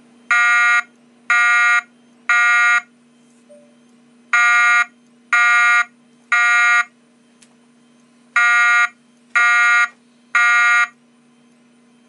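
Wheelock ET-1010 speaker/strobe sounding a custom fire evacuation tone: a buzzy, pitched beep in three groups of three, about one beep a second with a short pause between groups. This is the temporal-three fire evacuation signal.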